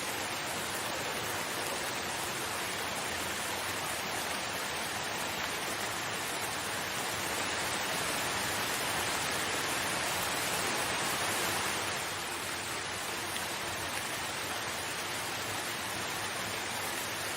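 Steady rain, an even hiss of falling rain that swells a little past the middle and eases back about two-thirds of the way in.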